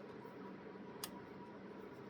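A single small metallic click about a second in, from a screwdriver working the terminal screws of a lamp's pull-chain switch, over a faint steady hiss.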